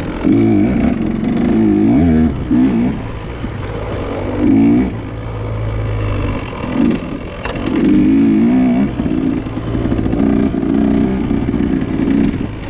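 Dirt bike engine revving up and down under riding, its pitch rising and falling again and again with the throttle.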